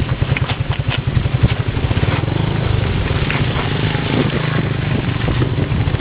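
Small motorbike engine running steadily while riding, with scattered short rattles and knocks over it.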